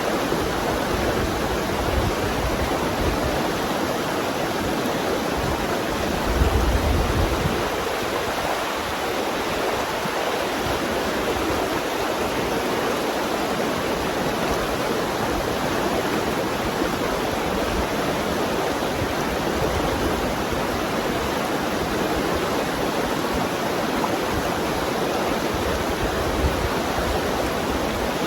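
Steady rush of a fast-flowing mountain river running over rocks in pocket water. A brief louder low rumble comes in about six seconds in.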